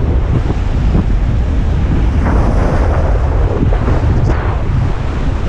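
Strong wind buffeting the microphone, over the wash of choppy surf breaking on the rocks.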